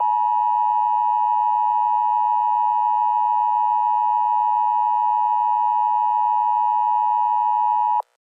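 Emergency Alert System attention signal: the steady two-tone 853 and 960 Hz alert tone, held for about eight seconds and then cutting off abruptly. It announces that an emergency message is about to be read.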